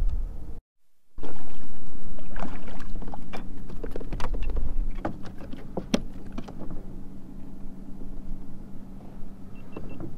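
Clicks and knocks of fishing line and gear being handled against the deck of a plastic fishing kayak, densest in the middle, over a steady low hum. The sound drops out for about half a second near the start.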